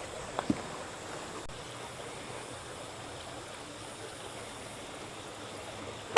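Steady outdoor background hiss with two quick knocks about half a second in. At the very end comes a single sharp crack, a golf club striking the ball on an approach shot.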